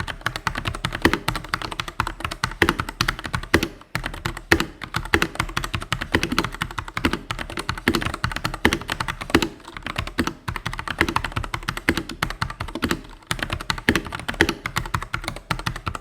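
Fast, continuous typing on a Rexus Daxa M84 Pro mechanical keyboard with Gateron Red linear switches. Each keystroke is a bottoming-out clack with no click from the switch itself, and the typing pauses briefly a couple of times.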